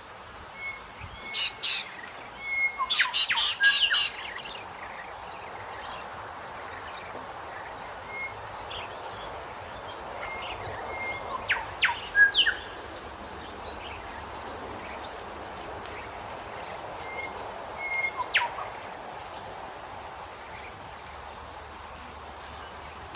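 Grey shrike-thrush calling: short clear whistled notes repeated at much the same pitch, broken by three bouts of loud, sharp notes, the loudest a few seconds in, then near the middle and again about three-quarters through.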